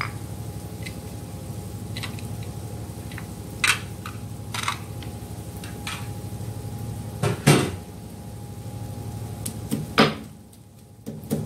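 A few sharp knocks and clacks of kitchen utensils on a wok and the worktop, the loudest two about halfway through and near the end, over a steady low hum. The sound drops away briefly just after the last knock.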